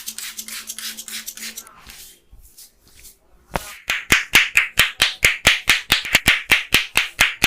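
Hand massage on a person's head: a run of soft, quick rubbing strokes, then, after a short pause, a long run of sharp hand slaps at about five a second.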